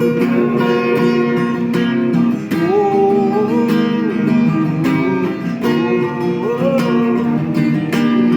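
Acoustic guitar strummed in a steady rhythm, with a voice twice singing a wordless, gliding melody over the chords.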